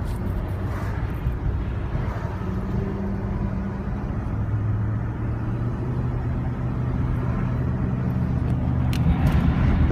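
Car engine and road noise heard from inside the cabin while driving: a steady low rumble with an engine hum that shifts in pitch a few times and grows a little louder near the end.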